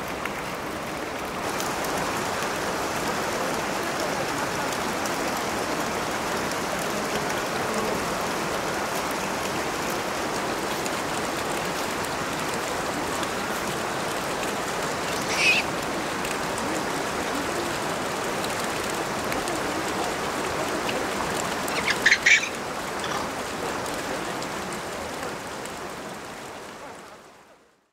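Steady rush of running water, with one brief high call about halfway through and a quick cluster of high calls later on; it all fades out near the end.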